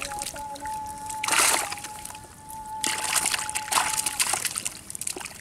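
Live fish splashing and thrashing in a plastic tub of water as they are dropped in, with the loudest splash about a second and a half in and more splashing from about three seconds. A steady tone runs underneath.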